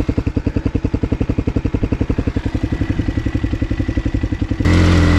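Motocross bike engine idling with an even, rapid pulsing beat. Near the end it gives way abruptly to a louder, steady engine sound.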